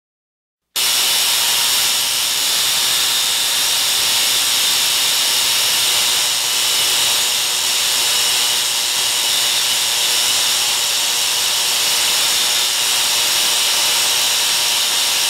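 Tesla coil running, giving a loud steady buzzing hiss that switches on abruptly about a second in.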